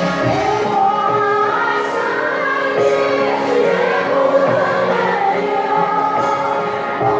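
Music with singing: a choir-like blend of voices over accompaniment, held notes that glide between pitches without a break.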